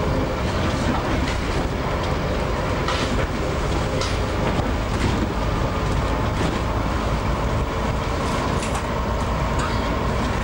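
Interior noise of a moving bus: steady engine and road rumble, with the bodywork and windows rattling and clicking now and then.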